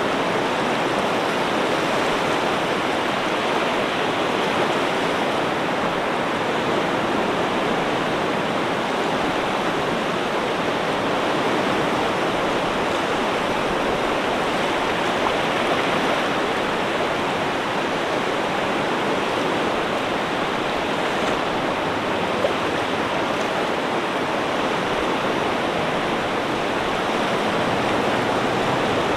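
Ocean surf, a steady even rush of water with no separate waves breaking or drawing back.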